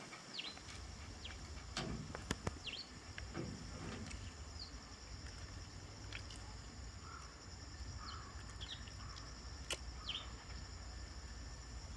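Birds chirping outdoors: scattered short, falling chirps over a steady high-pitched hiss and a low rumble, with a couple of sharp clicks.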